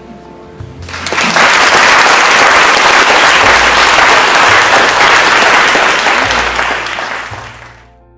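Audience applauding: the clapping swells in about a second in and is cut off abruptly near the end.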